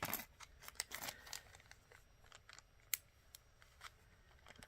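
Faint scattered clicks and light rustling of glass beads and small plastic bead bags being handled on a table.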